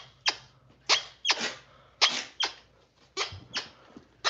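Short, high squeaks that fall steeply in pitch, coming in evenly spaced pairs about once a second.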